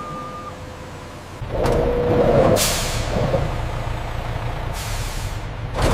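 Truck engine rumbling as it backs up, with three short hisses of its air brakes; a single short beep sounds at the very start.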